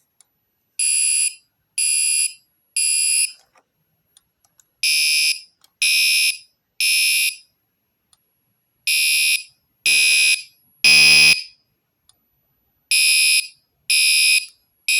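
Gentex Commander 3 fire alarm horn sounding in the temporal code-3 pattern: three half-second blasts about a second apart, then a pause, repeated. It is extremely loud and high-pitched.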